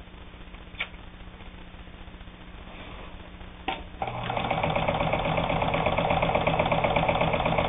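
Necchi Supernova Ultra sewing machine. A faint hum and two clicks come first; then, about four seconds in, the machine starts sewing a zigzag stitch with a fast, even mechanical rhythm, a sound called beautiful.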